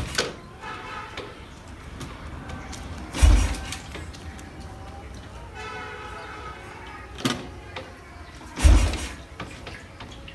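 Royal Enfield Bullet Electra's 350 cc single-cylinder engine being kick-started: three heavy thumps a few seconds apart as the kick lever is stamped down, with a sharp click between them. The engine does not catch and run.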